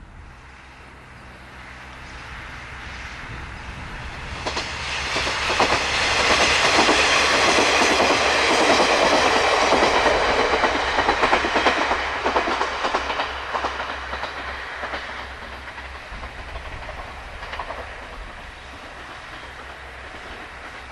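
KiHa 40-series diesel railcar passing by on jointed track. It grows louder over the first few seconds, its wheels clicking over the rail joints as it goes by, loudest from about five to twelve seconds in, then fades as it moves away.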